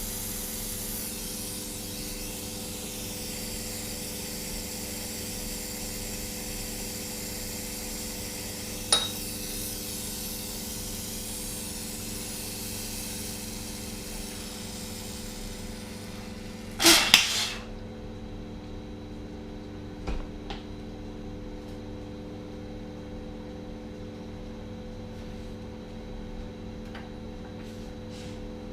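Hydrogen/oxygen soldering burner hissing steadily over a constant hum, with a small tick about nine seconds in. About two-thirds of the way through, the hiss cuts off suddenly with a short loud pop as the flame goes out, leaving the hum and a few faint knocks.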